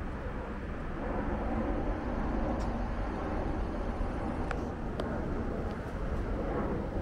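City street ambience: steady traffic noise from passing road vehicles, with a couple of short sharp ticks around the middle.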